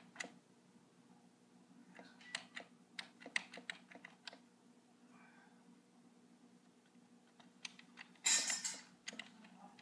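Scattered sharp clicks of computer keys, a cluster of them between about two and four seconds in, over a steady low hum. Near the end a short, loud rush of noise lasts under a second.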